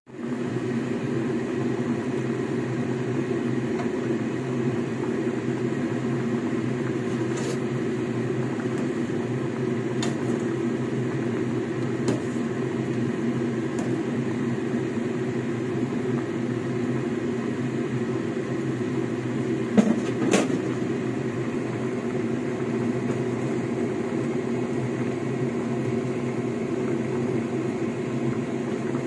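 Steady whirring hum of a kitchen fan, with a few light clicks and two sharper knocks about twenty seconds in.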